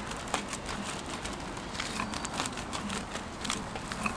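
Flat wooden spreader working beaten egg across a jianbing crepe on a hot round griddle, over a steady low crackle, with scattered light clicks and taps.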